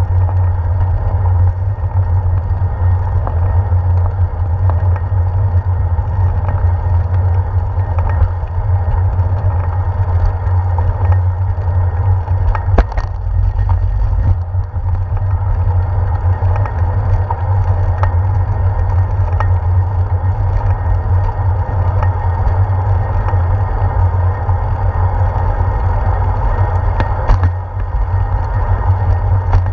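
Bicycle ride heard through a handlebar-mounted GoPro: a loud, steady deep rumble of wind and vibration as the tyres roll over a concrete sidewalk. A few sharp knocks about halfway through and again near the end, as the wheels cross bumps or joints in the pavement.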